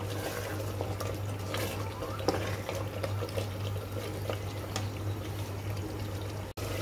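Mutton in masala bubbling and sizzling in its own released juices in an aluminium pressure cooker, with a wooden spatula scraping against the pot as it is stirred. The sound cuts out for an instant near the end.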